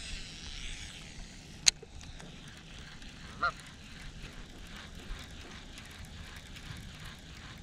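Baitcasting reel cranked steadily on a retrieve: a sharp click about two seconds in, then a faint, even ticking of the reel as the line is wound in. A goose honks once midway.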